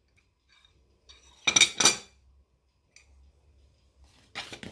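Dishes clinking: a quick cluster of clinks and knocks about a second and a half in, with a fainter tick near the three-second mark, as margarine is tipped off a plate into the bowl of flour for pastry dough.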